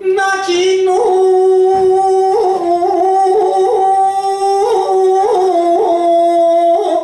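A man chanting shigin through the hall's microphone: one long drawn-out note held throughout, wavering in small ornamental rises and dips and sinking slightly lower near the end.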